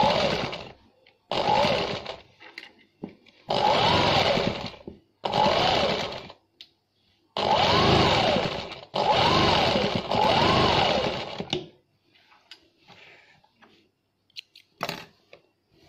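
Electric sewing machine stitching in about six bursts, its motor speeding up and slowing down within each burst.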